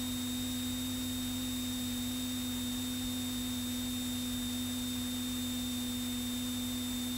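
A steady, unchanging low hum at one pitch over a faint hiss, switching on and off abruptly.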